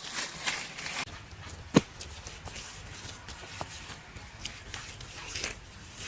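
Scattered scuffing and light knocks, with one sharp knock a little under two seconds in.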